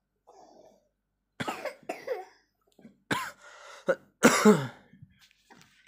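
A child with a cold coughing, a run of about five short coughs, the loudest about four seconds in.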